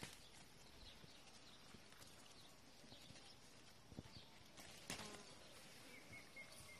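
Near silence: faint outdoor background with two soft clicks, about four and five seconds in.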